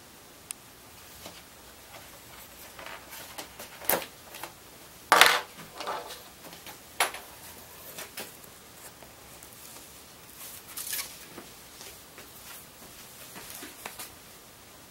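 Cured fiberglass laminate being peeled off a surfboard's EPS foam deck: irregular crackling and tearing, with the loudest crack about five seconds in and smaller ones scattered through.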